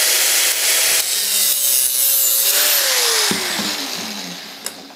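Electric drill motor running up to speed with a loud rasping, grinding noise over its whine, then released about three seconds in and winding down to a stop.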